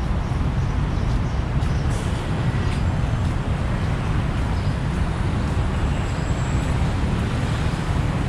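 Steady rumble of road traffic, heaviest in the low end, with a few faint clicks of activity over it.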